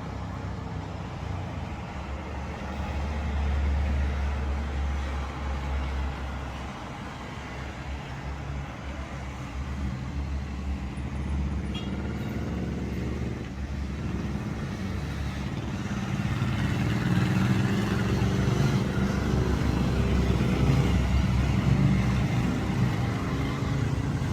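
Road traffic: vehicle engines running and passing with a steady low rumble, getting louder in the second half.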